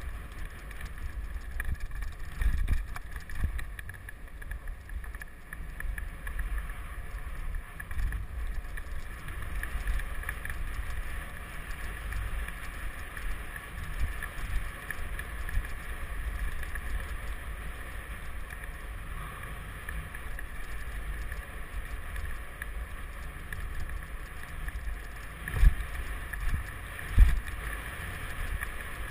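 Wind buffeting a helmet camera's microphone while a mountain bike rides fast over a dirt trail, with steady tyre rumble and rattling over bumps. Two sharp knocks about a second and a half apart near the end.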